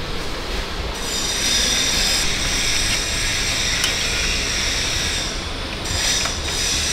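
Steady mechanical workshop noise with a high hiss that comes in about a second in, fades briefly around six seconds, then returns.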